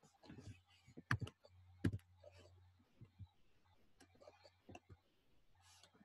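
Faint, irregular clicking of computer keys and mouse buttons as code is edited, the two loudest clicks about a second and about two seconds in, over a faint low hum.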